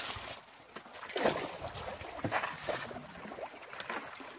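Canoe paddle strokes in marsh water: splashing and dripping as the paddle dips and pulls, a few strokes in a row.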